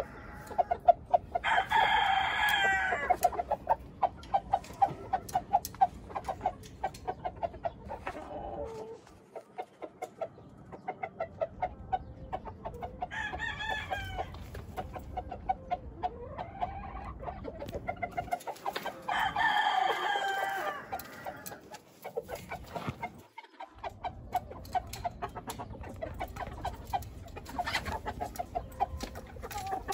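Gamefowl roosters crowing three times: near the start, about halfway through, and about two-thirds of the way in, each crow one to two and a half seconds long. Between the crows, chickens keep up a quick, steady clucking.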